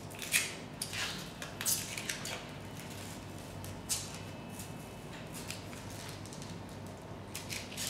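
Protective plastic film being peeled off a laser-cut acrylic printer panel: crackly tearing rips, several in the first couple of seconds, another about four seconds in and a pair near the end.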